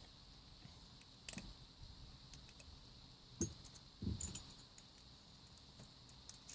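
Faint metallic clicks and clinks of keys and lock parts being handled during a Kwikset lock rekey, a few sharp clicks standing out about a second in and again around three and four seconds in.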